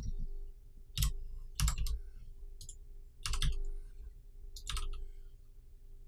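Computer keyboard keystrokes: four short bursts of key clicks about a second or more apart, some of them double taps.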